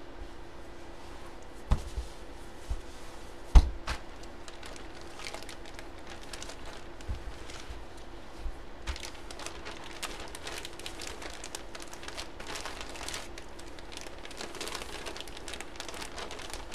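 A few knocks on the table in the first four seconds, the loudest about three and a half seconds in, then a clear plastic bag crinkling and rustling as it is handled.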